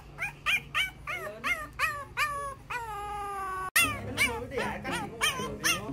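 French bulldog puppies whining: a quick run of high cries that fall in pitch, about three a second, with one longer held cry about three seconds in. The sound breaks off sharply just after it, and the whining goes on.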